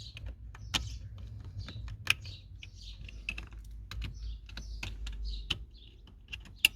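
Irregular small clicks and plastic rattling from wiring-harness connectors being handled, unlatched and pushed together, with a few sharper snaps, the loudest about two seconds in and near the end.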